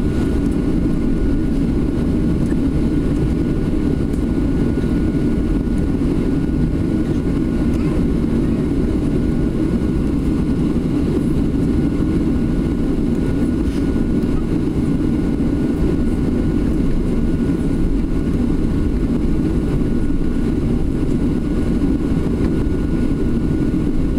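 Steady cabin noise of a Boeing 737-800 taxiing, its CFM56-7B jet engines running near idle, heard from inside the cabin. A faint high whine sits steadily over the low hum.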